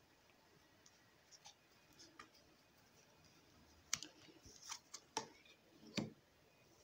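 Tarot cards being handled and laid down on a wooden tabletop: a few faint clicks, then four sharper taps and clicks between about four and six seconds in.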